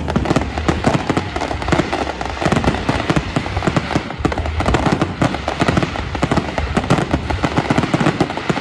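Aerial fireworks display: many shells bursting in rapid succession, a dense, continuous string of bangs and crackle with no let-up.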